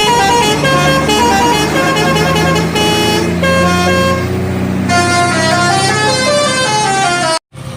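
Indonesian bus 'telolet' musical horn playing a quick tune of stepped notes, several horn tones sounding together, over a low steady engine drone. It cuts off abruptly near the end.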